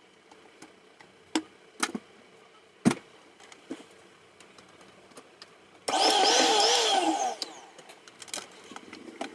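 A few knocks as the mixer grinder is handled, then its electric motor is switched on and runs loud and high-speed for about a second and a half, its pitch wavering, before it is switched off and winds down.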